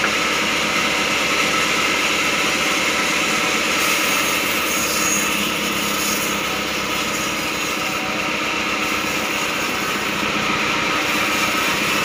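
Sawmill band saw running and cutting slowly through a block of very hard acacia wood, a steady, unbroken machine drone.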